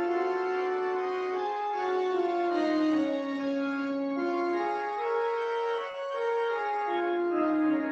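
Pipe organ playing several held notes at once, with the chords and melody moving to new notes about every half second to a second.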